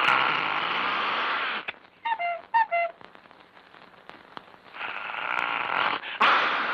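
Early-1930s cartoon sound effects: a sharp crack followed by about a second and a half of hiss, then a few short squeaky notes, and another sharp crack with hiss about six seconds in.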